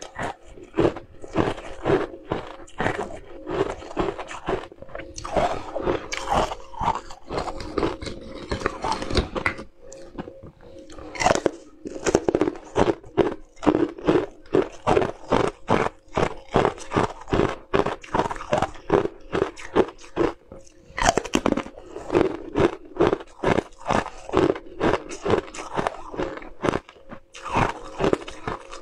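Crunching bites into a frozen green ice bar, the ice cracking between the teeth in quick, irregular strokes, with a brief pause about ten seconds in.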